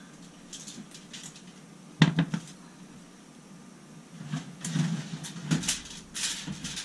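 A sharp clunk about two seconds in, then a run of crisp crinkling and rustling as a crumpled sheet of aluminium foil is handled and laid on a glass cooktop.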